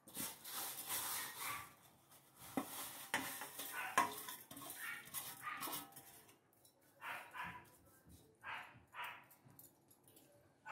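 Stainless steel pot and bowl being handled while ragi vermicelli is added to soaking water, with uneven splashing and a few sharp metal knocks. A run of short separate sounds, about two a second, comes in the last few seconds.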